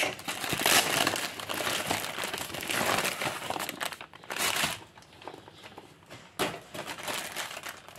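Plastic wrapping and a torn kraft-paper mailer crinkling and rustling as a plastic-wrapped bundle of plastic bags is pulled out and set down. The rustling comes in irregular bursts with quieter gaps, the quietest stretch a little past the middle.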